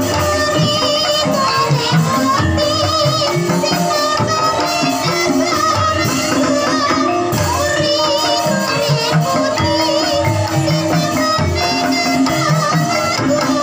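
Live Javanese gamelan music for an ebeg (kuda kepang) dance, with bronze bonang gong-chimes ringing over a steady percussion rhythm.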